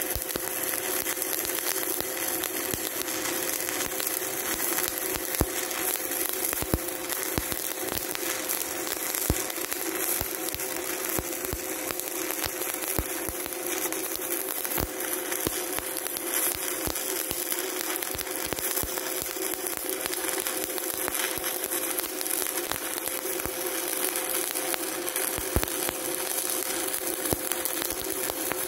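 Stick-welding (shielded metal arc) arc from a 1/8-inch 7018 electrode on DC electrode-positive, crackling and sizzling steadily with frequent small pops as a vertical-up fill pass is laid on a steel test plate. A steady hum runs underneath.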